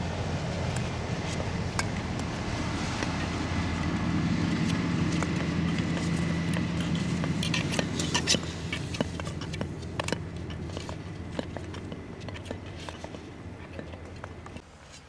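Speed skate blades scraping and clicking on ice, loudest about eight seconds in, over a steady low hum that drops away near the end.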